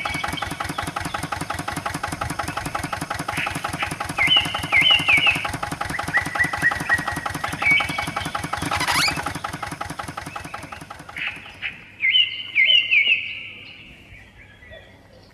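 A small engine runs with a fast, steady chug and fades away about eleven seconds in. Birds chirp in short repeated phrases, loudest near the end once the engine has faded.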